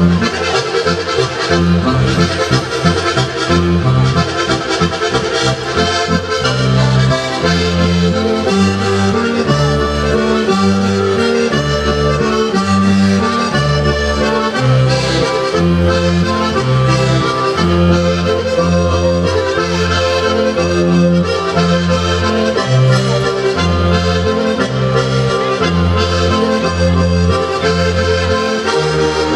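Sardinian organetto (diatonic button accordion) playing a traditional ballu sardu dance tune: a running melody over bass notes that change in a steady rhythm.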